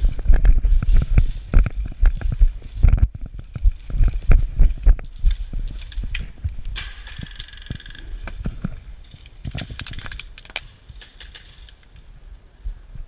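Footsteps at a run with gear jostling, heavy thumps and rattling clicks close to a body-worn camera, growing sparser and quieter through the second half.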